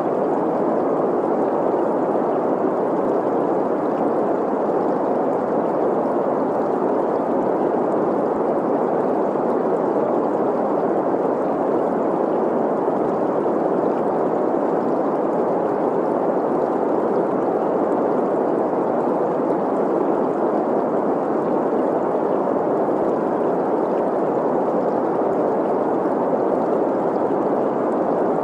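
Steady green noise, a synthetic hiss concentrated in the middle range, mixed with the sound of a flowing stream, unchanging throughout.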